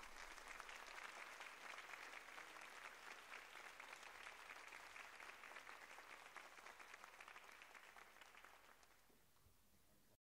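Faint audience applause, a steady crackle of many hands clapping that thins out over the last couple of seconds and then cuts off abruptly.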